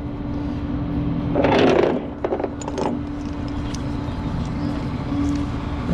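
Tow truck engine idling with a steady hum. About a second and a half in comes a short noisy rattle, followed by a few sharp clicks from the strapping gear.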